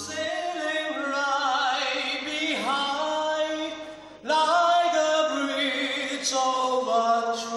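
A man singing into a microphone in long, held notes with a wavering vibrato. There is a brief pause for breath about four seconds in, and then a louder phrase.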